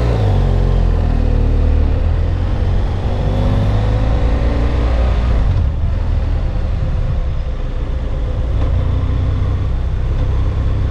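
BMW F800GS parallel-twin motorcycle engine pulling away from a stop with a pillion aboard, its revs climbing over the first few seconds and then settling into a steady run, with wind rush over the microphone.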